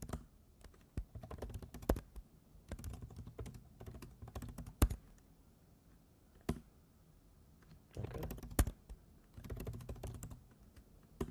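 Computer keyboard typing in quick runs of keystrokes, with a few louder single key strikes in between and a pause of about a second and a half near the middle.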